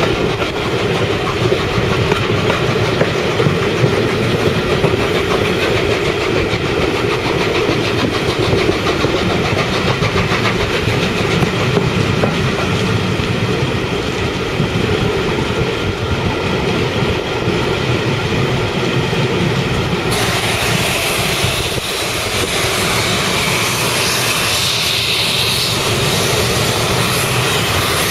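Steam-hauled passenger train behind 60163 Tornado, a Peppercorn A1 Pacific, running past with its wheels clattering over the rail joints. About twenty seconds in the sound turns suddenly brighter and hissier.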